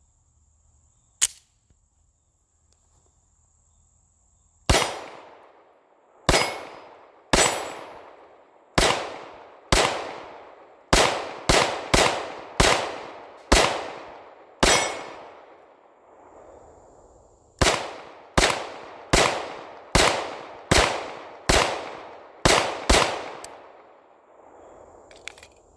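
MAC 9 DS 4.25 comp 9 mm pistol fired in slow, steady single shots, about nineteen in all, each shot ringing out with a fading echo, with a pause of about three seconds partway through the string. A small click comes about a second in, before the shooting starts.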